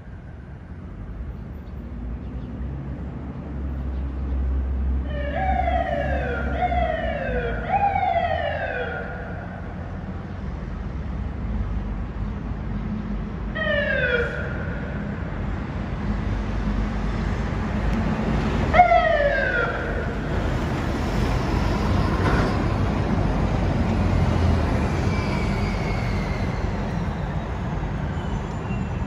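Fire engine's Federal Signal PA300 electronic siren sounding in short falling sweeps, over steady low city-traffic and engine rumble. A quick run of sweeps comes about a fifth of the way in, a single one near the middle, and two more about two-thirds of the way through.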